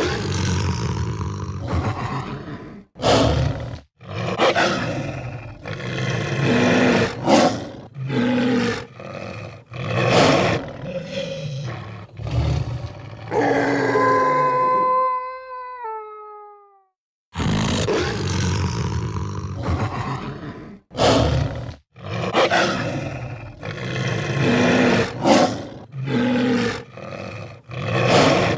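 Animatronic werewolf Halloween prop playing its recorded beast sounds through its speaker: a run of rough growls and sniffs, then a long howl-like call about 13 seconds in that falls in pitch at its end. After a short silence the growling starts again.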